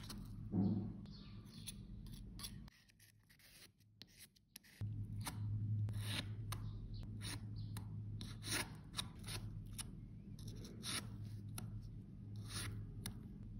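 A small spatula scraping pressed blush and foundation out of the metal pans of a makeup compact: a run of short, scratchy strokes, with a brief near-quiet break about three seconds in.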